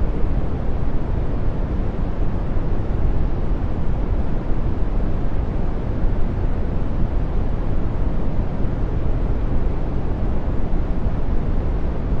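Brown noise: a steady, deep hiss of random noise, strongest in the bass and fading off toward the treble, with no change from start to end.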